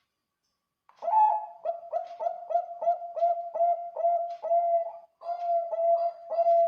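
Zebra dove (Bangkok-strain perkutut) cooing in a big-voiced song of the kind played as a lure call. After about a second of silence comes a quick run of short, clipped coos, about three a second. A brief break about five seconds in is followed by longer, drawn-out coos.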